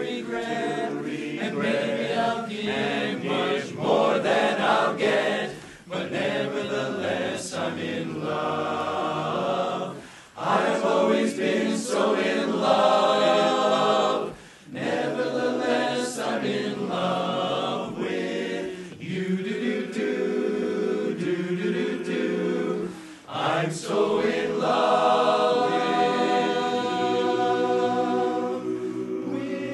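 Large men's chorus singing a cappella in full harmony, in phrases with brief breaks between them, ending on long held chords.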